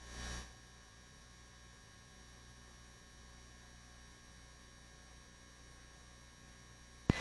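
Faint steady electrical hum and hiss of the helicopter's radio audio feed between transmissions, with a sharp click near the end as the microphone is keyed again.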